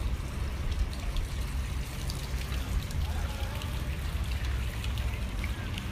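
Water trickling and splashing in a stone garden fountain, a continuous even wash of water noise over a steady low rumble.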